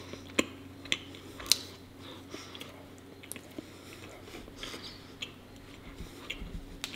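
Close-miked chewing of raw honeycomb: sticky, wet mouth clicks and smacks, a few sharper ones in the first second and a half, then softer ones.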